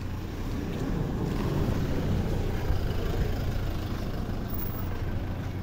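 A motor vehicle's engine running steadily nearby, a low even drone under general street noise.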